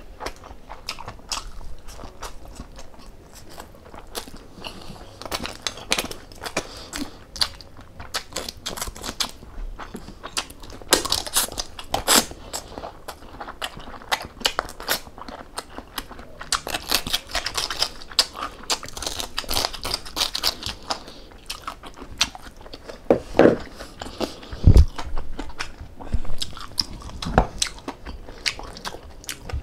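A person chewing and crunching crispy food close to the microphone, with frequent sharp crackles and bites. A louder thump comes about three-quarters of the way through.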